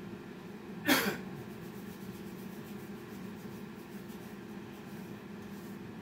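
A man coughs once, short and sharp, about a second in, over a steady low background hum.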